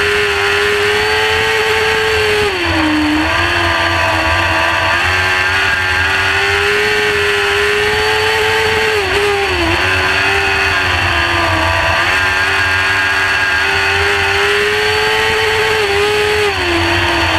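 Winged dirt-track sprint car's engine heard from the cockpit, held at high revs on the throttle. Three times it dips briefly in pitch and picks straight back up as the driver lifts for the turns.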